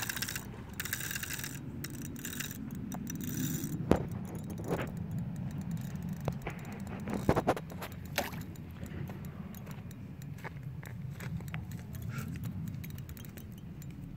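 Clicking and scraping handling noise from a large spinning reel and rod held while playing a big fish, with a few sharper knocks about four and seven seconds in, over a steady low rumble.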